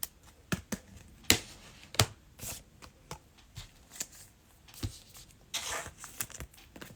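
Trading cards being handled and flipped by hand: a string of sharp separate flicks and taps, with a longer rustle of cards or pack wrapper a little over five and a half seconds in.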